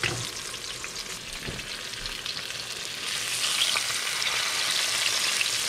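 Flour-dredged fish fillets sizzling and popping in hot fat in a stainless steel skillet, the frying turning to a golden brown crust. The sizzle grows louder about three seconds in, as the fillets are turned over into the fat.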